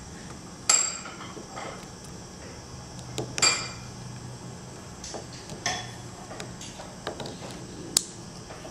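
Small metal tool and parts clinking and clicking. Four sharp clinks that ring briefly come about a second in, three and a half seconds in, near six seconds and near the end, with lighter ticks between them.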